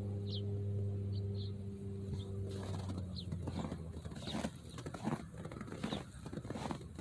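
Footsteps crunching on a snow-dusted sidewalk, starting about two and a half seconds in, with a few short, high bird chirps. Before the steps begin, a steady low hum.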